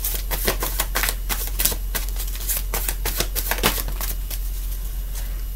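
Deck of tarot cards being shuffled by hand: a quick run of card flicks and riffles that thins out and stops about four seconds in.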